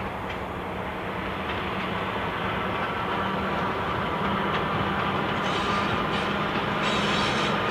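Diesel-electric railmotor set (rebuilt Victorian Railways DERMs with a Brill trailer) approaching, its engine drone steady with a low hum and growing louder. Wheel-on-rail noise joins in short bursts in the last couple of seconds.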